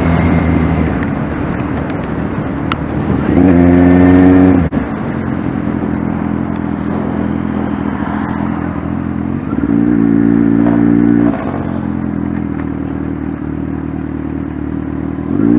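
2019 Kawasaki Z1000R inline-four engine, its catalytic converter removed and its AIS blocked, accelerating hard about three seconds in and again near ten seconds, each time dropping off abruptly as the throttle is shut to decelerate. It starts to rev again near the end.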